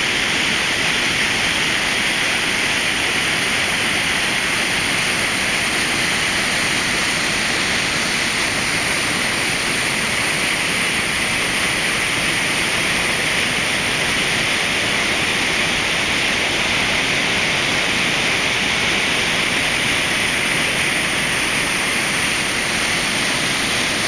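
Mountain stream pouring in whitewater cascades through a narrow rock gorge: a loud, steady rush of water that never lets up.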